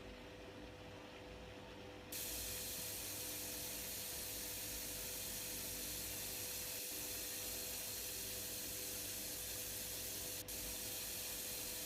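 Beko washing machine humming steadily; about two seconds in, an even hiss of water starts suddenly and keeps going, water spraying into the drum through the opened inlet valve.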